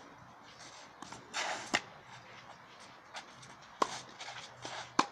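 Tennis ball struck by rackets in a baseline rally on a clay court: sharp pops about two seconds apart, with fainter ball bounces between them.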